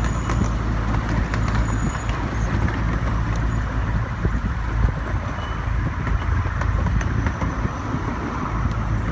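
Ride-on miniature railway train running along its narrow-gauge track, heard from a passenger car: a steady low rumble of wheels on rail with scattered light clicks.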